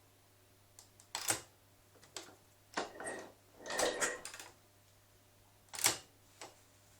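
Kick-start and decompressor mechanism of a VOR SM 503 motorcycle being worked by hand: a series of sharp metallic clicks and clunks, with a longer rattling clatter in the middle, as the starting lever is pushed and snaps back.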